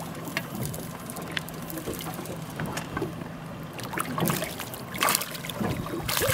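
Water slapping against a small boat's hull, wind on the microphone and a low steady motor hum, while a hooked fish thrashes and splashes at the surface as it is reeled in, loudest about five seconds in and again near the end.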